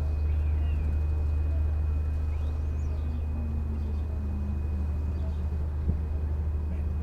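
Steady low engine drone with a thin constant high whine above it, and a few faint chirps and a brief rising-and-falling whistle about two to three seconds in.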